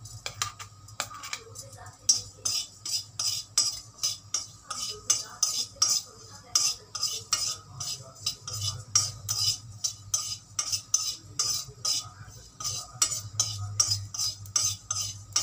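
Steel spoon stirring and scraping cumin seeds around a hot metal kadhai as they roast, a rhythmic clink and scrape about twice a second.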